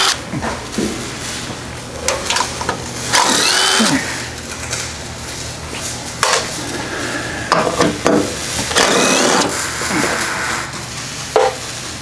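DeWalt cordless driver with a 12 mm socket backing out skid plate bolts in several short bursts, its motor whine rising in pitch as it spins up. A steady low hum runs underneath.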